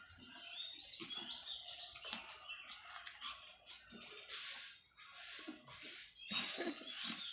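Two pet dogs playing together: irregular bursts of scuffling and rustling noise, with a few short high squeaks.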